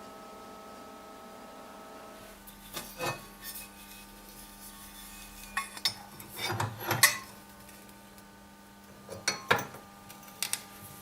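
Metal parts clinking and knocking together several times, after a steady hum stops about two seconds in.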